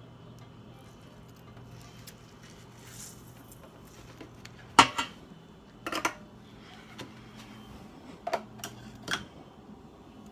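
Scissors snipping and clicking as a homemade squishy is cut open: a handful of short, sharp snips between about five and nine seconds in, the loudest about five seconds in, over a low steady hum.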